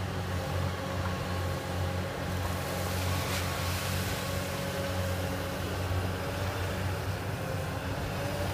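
Komatsu PC240LC-10 excavator's Stage 3B diesel engine running steadily under hydraulic load as the long boom lifts the bucket out of the water, with a thin steady whine over the engine drone.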